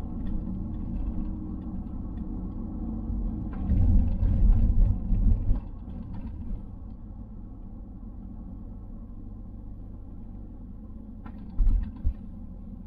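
Engine and road rumble heard inside the cabin of a Mountune M330-mapped Ford Focus ST Mk4, whose engine is a turbocharged 2.3-litre EcoBoost four. It is louder and busier for the first five seconds or so, then settles to a quieter steady hum. A short loud thump comes near the end.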